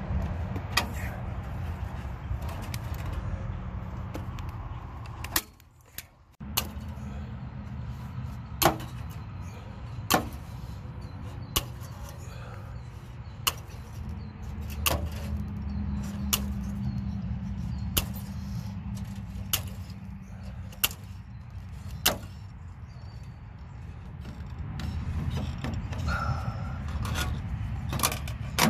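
Sharp metallic clicks from a hand tool fastening chicken wire to a wooden post, coming one at a time every second or two over a steady low hum.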